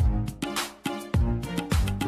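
Background music with a steady beat of about two deep bass hits a second and pitched notes above it.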